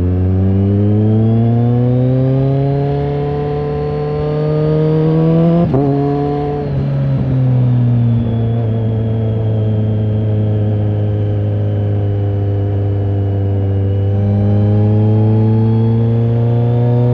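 BMW K1300R's inline-four engine breathing through an AC Schnitzer aftermarket exhaust while riding. It pulls up through the revs, shifts up with a short click about six seconds in, holds a steady pitch for several seconds, then climbs in revs again near the end.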